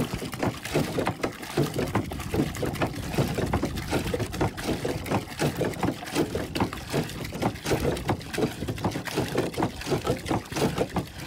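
Well water gushing from a hand pump's pipe spout and splashing into a trough as the pump handle is worked, the flow and splashing pulsing in a regular rhythm.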